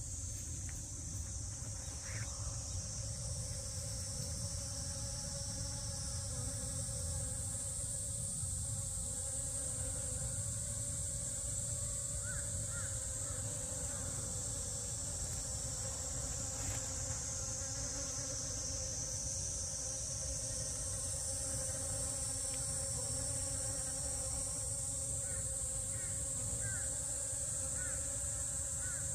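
Honey bees buzzing steadily around flowering drumstick alliums, over a continuous high-pitched insect drone.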